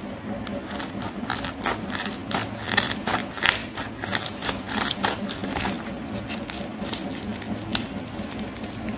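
Plastic packaging bag being cut open with scissors and crinkled in the hands: a quick, irregular run of crackles and snips that thins out over the last few seconds.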